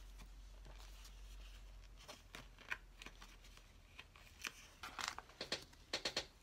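Alphabet stickers and their paper sheet being handled and pressed onto a Bible page by hand: a scatter of short, sharp paper crinkles and light taps, starting about two seconds in and getting busier toward the end.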